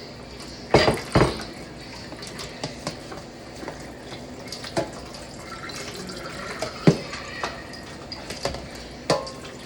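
Salad of chopped lettuce, tomato and onion with mayonnaise and dressing being tossed in a bowl: wet stirring, with a utensil knocking against the bowl now and then, two loud knocks about a second in.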